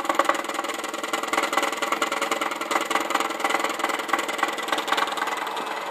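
3D printer extruder stepper motor (Extruder 1) running with a harsh, rapid, buzzing rattle, a nasty noise that stays the same whichever way the motor plugs are swapped, which points to a fault in the Extruder 1 motor rather than its driver.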